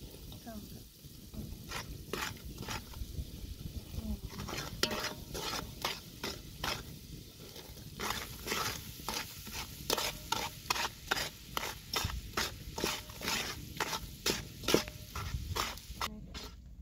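Metal ladle stirring and scraping around a large metal cooking pot as flour is worked into hot liquid, over a steady low hiss. The strokes are sparse at first, then come regularly at about two a second in the second half.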